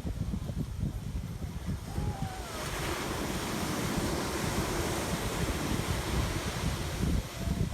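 Surf breaking and washing up a sandy beach, with wind buffeting the microphone. About two and a half seconds in, the wash of a wave swells and holds.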